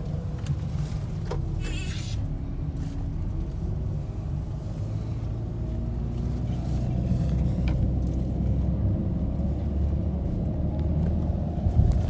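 A moving road vehicle heard from inside its cabin: a steady low rumble of engine and road noise, growing slightly louder past the middle.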